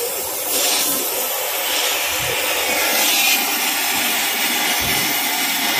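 Gas cutting torch flame hissing steadily as it heats a truck's chassis bolts so they can be cut out. It grows brighter briefly twice, about half a second in and about three seconds in.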